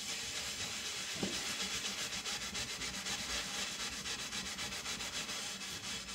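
ENJO kitchen scrub pad rubbing milky marble paste over the bottom of an upturned pot in rapid, even back-and-forth strokes, scouring off baked-on grime.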